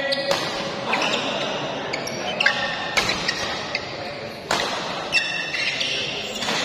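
Badminton rally: sharp cracks of rackets striking the shuttlecock, several of them, and short high squeaks of shoes on the court.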